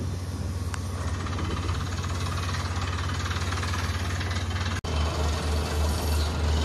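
Water-well drilling rig running, its engine and compressor driving the down-the-hole air hammer with a fast, even knocking as it drills rock. A sudden break comes a little under five seconds in, after which a pulsing low engine hum carries on.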